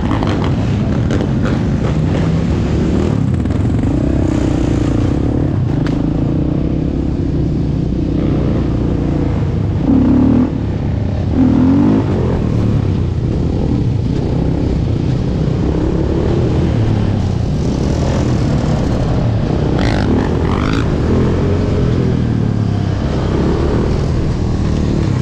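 Sport ATV engine running and revving on the move, its pitch rising and falling with the throttle, with other dirt bikes and quads riding alongside. Two short, louder revs come about ten and eleven and a half seconds in.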